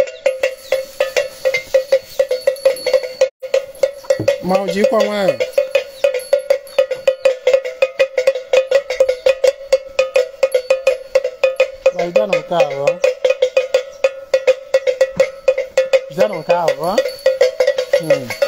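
A metal bell struck rapidly and steadily, ringing on one pitch with several strokes a second. Three short bursts of voice, like chanting, come about four, twelve and sixteen seconds in.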